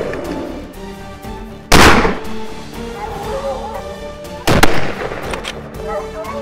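Two rifle shots about three seconds apart, each a sudden loud crack that trails off, over background music.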